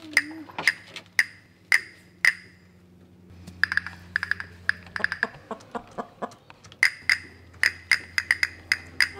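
Background music with a wood-block-like percussion beat, about two evenly spaced knocks a second over a low steady bass. From about three and a half seconds in the knocks come quicker and busier.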